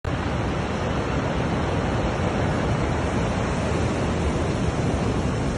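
Ocean surf breaking and washing up over a lava-pebble beach: a loud, steady rush of water with a deep rumble.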